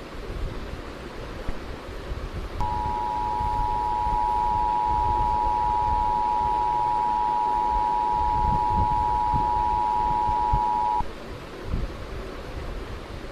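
Emergency Alert System attention signal: a steady two-tone alert tone that starts a few seconds in, holds for about eight seconds and cuts off abruptly, over a background hiss and low rumble.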